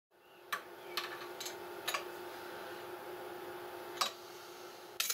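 Hand-built micro lathe running on its belt-driven electric motor with a steady hum, broken by several sharp clicks as its controls are worked.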